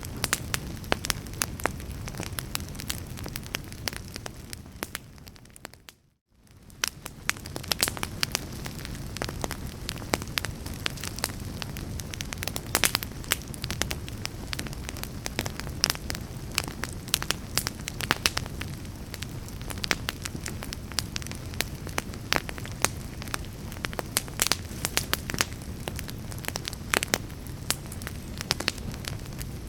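Fire burning, with frequent sharp crackles and pops over a steady low rumble. The sound fades out to near silence about five seconds in and fades back in a second later.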